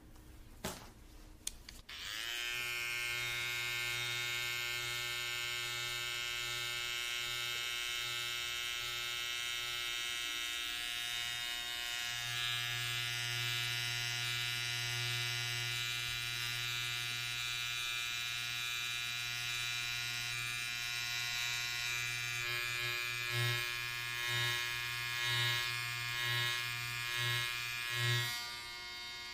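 Electric hair clippers switched on about two seconds in after a few handling clicks, then buzzing steadily. Near the end the buzz swells and fades about once a second as they are moved back and forth close to the microphone.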